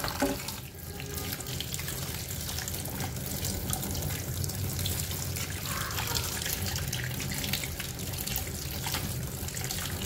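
Water running from a tap over a plastic detergent dispenser tray being rinsed in a sink, a steady splashing flow with small knocks of the tray being handled.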